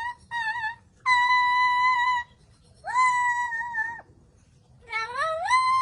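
Pet talking bird whistling on cue: a short wavering note, then three long, steady whistled notes. The last slides up into its pitch.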